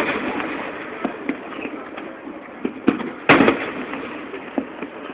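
Fireworks bursting: a loud boom at the start and another a little after three seconds in, each with a rumbling tail, and fainter pops between them.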